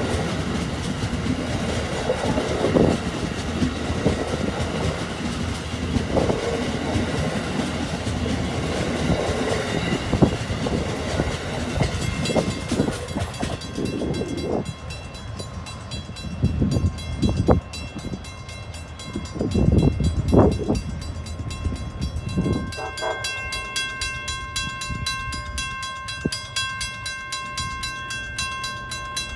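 Amtrak passenger train clattering past the grade crossing on the rails, its noise dying away as it moves off after about 13 seconds. The crossing's warning bell then rings with a rapid, even beat, and a few low thumps come between the strikes.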